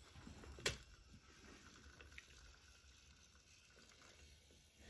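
Motorised Mattel Thomas toy engine running faintly along wooden track, a low steady hum from its small motor and wheels. A sharp click comes just under a second in.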